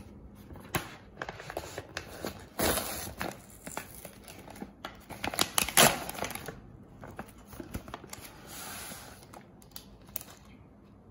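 Plastic instant-noodle bag being torn open and rummaged through, crinkling and rustling as sachets are pulled out, with the loudest crackles about five to six seconds in.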